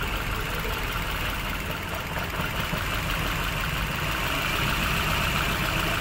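Maruti Suzuki Baleno's four-cylinder petrol engine idling with cylinder 4's ignition coil connector pulled, so it runs on three cylinders, missing and vibrating. This cylinder-drop test shows that cylinder 4, now fitted with the swapped-in good coil, is firing.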